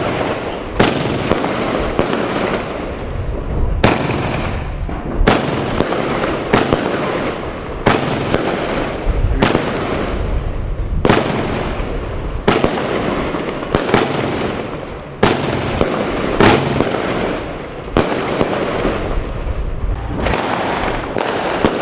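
Fireworks going off: sharp bangs about every second and a half over continuous dense crackling.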